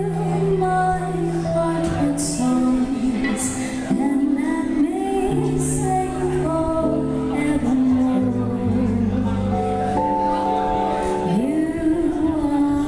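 Live band playing a song, a woman singing lead over keyboard and drums, with a few cymbal hits.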